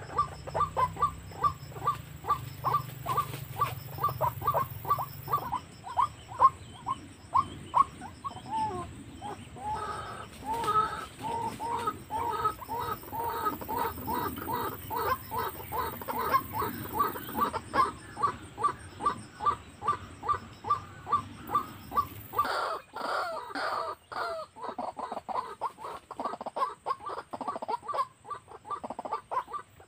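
White-breasted waterhen calls: a long, regular run of short croaking notes, about four a second, with extra overlapping calls around the middle.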